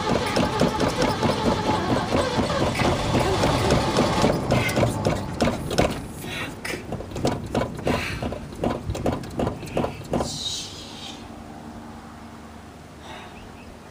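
Starter cranking the flooded engine of a 1970s Ford pickup without it catching. The cranking rhythm slows and weakens about halfway through as the battery runs down, then stops about ten seconds in.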